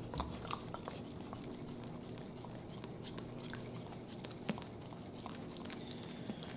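Yellow Labrador retriever licking peanut butter off a knife blade: a scatter of faint tongue and lip-smacking clicks, one sharper click about four and a half seconds in.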